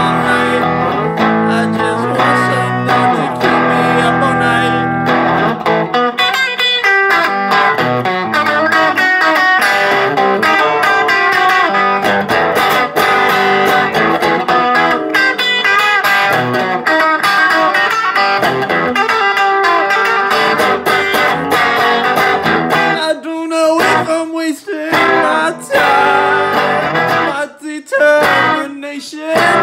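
Squier electric guitar being played: ringing chords for the first few seconds, then quicker picked notes and phrases, broken by short pauses near the end.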